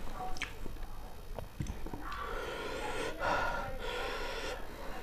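A person breathing heavily and audibly through the mouth and nose, loudest in the second half. A few soft clicks and squelches come from fingers mixing rice with curry on a banana leaf.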